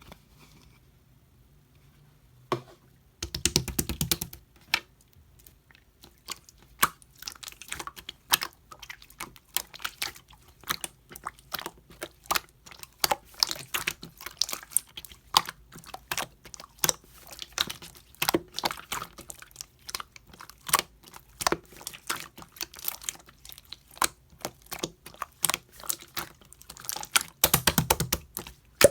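Slime being squished and poked by hand, making dense, irregular small clicks and pops. It is nearly quiet for the first few seconds, with quick rattling runs of pops about four seconds in and again near the end.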